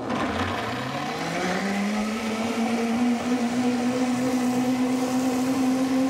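Countertop blender motor starting up and spinning up over the first couple of seconds, then running steadily as it purées chickpeas, tahini, lemon juice and water into hummus. Its pitch creeps slightly higher as it runs.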